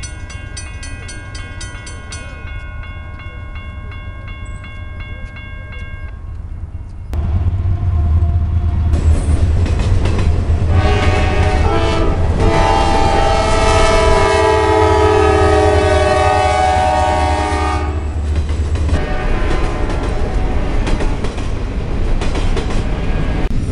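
Railroad crossing bell ringing steadily. About seven seconds in, a loud diesel locomotive rumble starts suddenly, and a CSX freight locomotive's multi-tone horn then sounds for about eight seconds. After the horn, the rumble and wheel clatter of the passing freight train continue.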